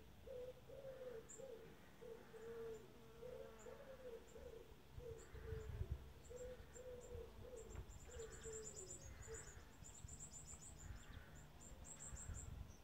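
A dove cooing softly: a long run of low coos repeating one after another. High, thin chirps from a small bird come in quick trills about midway and again near the end.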